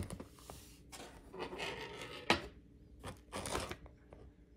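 Plastic granola pouch rustling and crinkling as it is handled, in several short spells, with a single sharp tap a little past two seconds in.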